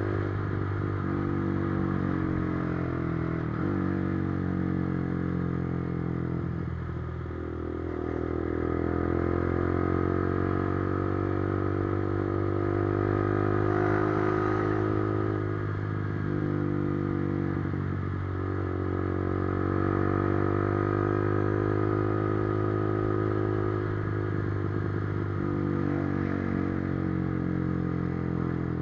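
Motorcycle engine running under way. Its pitch climbs and then drops sharply every few seconds, as with throttle changes and gear shifts.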